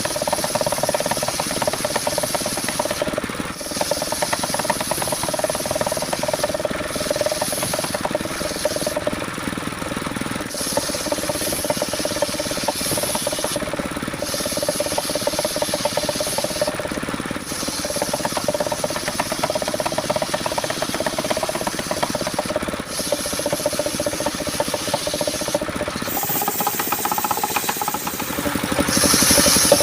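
Homemade sawmill machine (serkel) sawing a coconut-wood log: a steady running tone under a continuous rasping cut. The sound changes about four seconds before the end.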